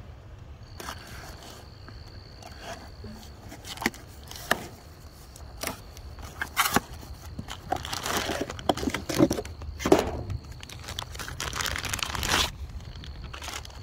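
Small cardboard box being slit and opened with a utility knife, then a clear plastic bag crinkling as a battery is drawn out of the box and handled. Scattered clicks and snaps in the first half, then louder rustling and crinkling from about halfway through.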